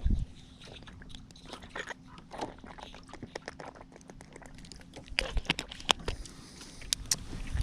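Someone drinking from a plastic water bottle: small crinkles and clicks of the bottle being handled, with a cluster of louder ones about five to seven seconds in.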